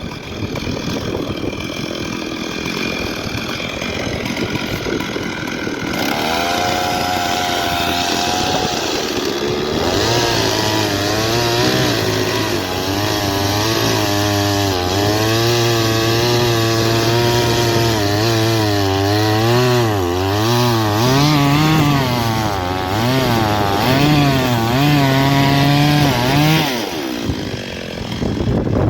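Chainsaw running and cutting wood, its engine note wavering up and down as the chain works through the cut, then dropping off near the end.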